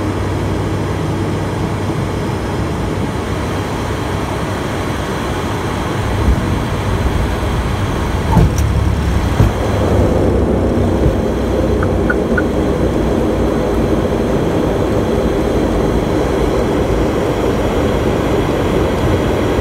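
Cockpit noise of an ATR 72-600's Pratt & Whitney PW127M turboprops and airflow during the flare and touchdown. A few short thumps from about six to nine seconds in mark the wheels meeting the runway, then the propeller noise grows louder and fuller on the rollout. Three short high beeps sound about twelve seconds in.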